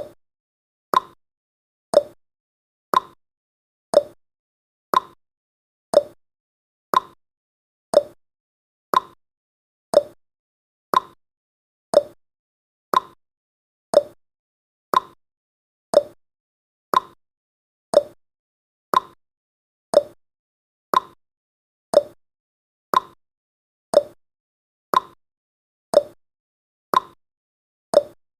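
Countdown timer's ticking sound effect: a sharp, clock-like tick every second, alternating between a higher and a lower pitch like a tick-tock, with fainter clicks in between.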